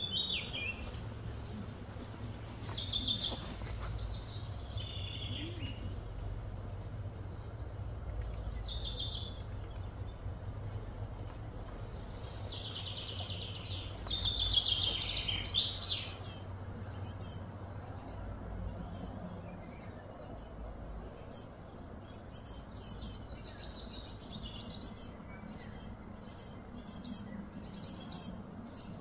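Wild birds chirping and calling in short repeated phrases and trills, over a faint steady low hum.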